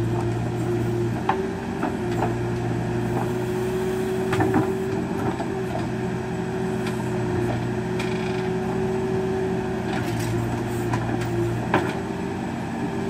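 Case backhoe loader's diesel engine running steadily as the backhoe digs, its note rising and falling slightly under hydraulic load. A few sharp knocks of the bucket against rock and stones.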